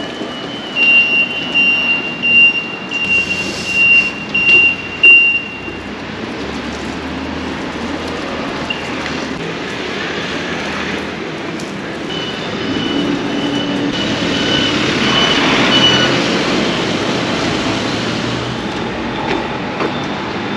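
Street traffic noise. A run of high electronic beeps stops about five seconds in, then a passing vehicle swells to its loudest about fifteen seconds in and fades.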